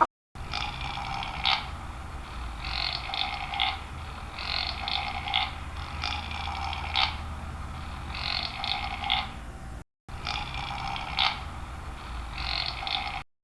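An animal calling over and over, about one call a second, each call lasting about a second and ending abruptly, broken by two short total silences.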